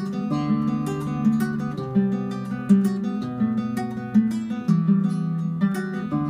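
Classical guitar played solo, chords picked and strummed one after another, each starting with a sharp pluck and ringing on.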